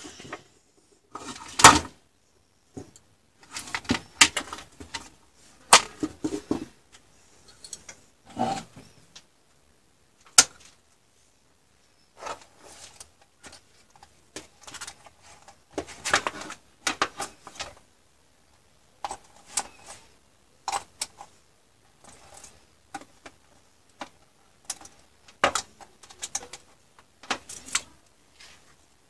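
Irregular knocks, clicks and rattles of a disassembled ATX power supply being handled: its metal case, cables and circuit board are moved and set down on the bench. The loudest knock comes about two seconds in.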